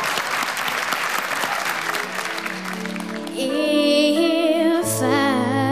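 Audience applauding, dying down after about three seconds. Then the backing music of a slow ballad starts, with a high boy's voice singing a wavering held line over it, and a low bass joins about a second later.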